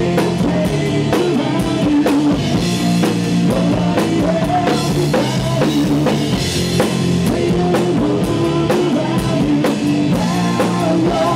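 Hard rock music: a drum kit beat with cymbals under electric guitar and bass.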